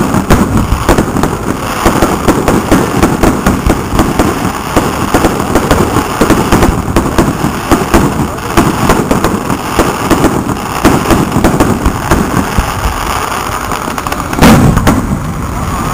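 Fireworks display: a rapid barrage of aerial shells launching and bursting, many overlapping bangs and crackles every second, with one louder boom near the end.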